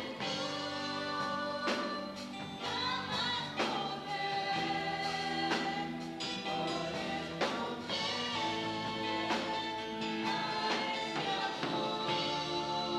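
A vocal group of one man and three women singing a gospel hymn together through microphones over an instrumental accompaniment, with a strong beat about every two seconds.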